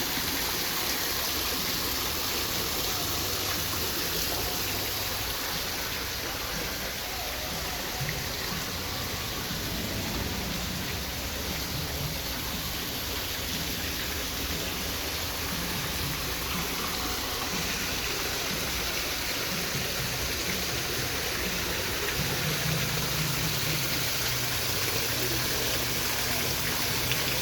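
Waterfall: water falling and rushing in a steady, unbroken splash.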